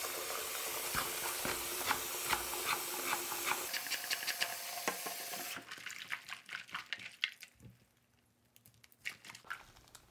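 Hot water running from a tap into a container of small plastic toy figures, with scattered clicks and knocks. The water cuts off suddenly about halfway through, and fainter clicks carry on.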